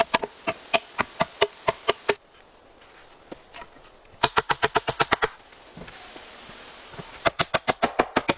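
Rapid runs of sharp knocks, several a second, in three bursts with short pauses between, like a blade or tool striking repeatedly.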